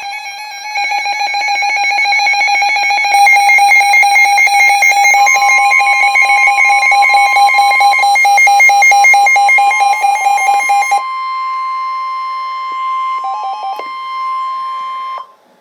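Emergency Alert System alert tones announcing a severe thunderstorm warning: layered electronic tones pulsing rapidly. About five seconds in a long steady tone joins them; it carries on after the pulsing stops, at about eleven seconds, and cuts off suddenly shortly before the end.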